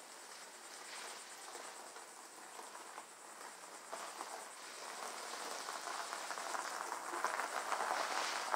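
Tires of a bare 1958 Plymouth rolling chassis crunching over gravel as the frame is pushed along, growing louder as it comes closer. A steady high insect trill runs behind it.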